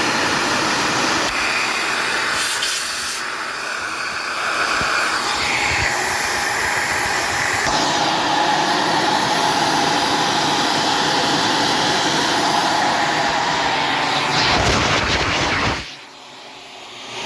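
Shark self-cleaning vacuum cleaner running steadily on its low-carpet setting. Its tone shifts about halfway through, and the sound drops sharply near the end before coming back up.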